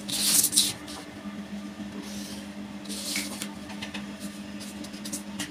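A felt-tip marker and a tape measure scratching and rustling on paper, in two short bursts: a louder one at the start and a smaller one about three seconds in, with a few light ticks, over a steady low hum.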